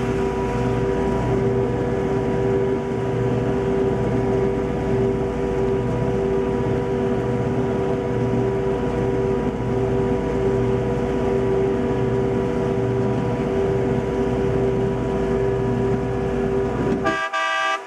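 Grand-scale F unit locomotive heard from inside its cab: the engine running steadily under a long, steady horn tone that cuts off suddenly near the end, followed by a brief higher-pitched toot.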